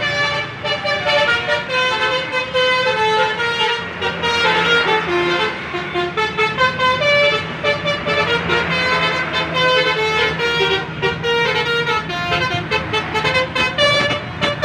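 A tour bus's multi-tone "telolet" air horn playing a continuous stepping melody as the bus drives past, over the steady sound of its engine.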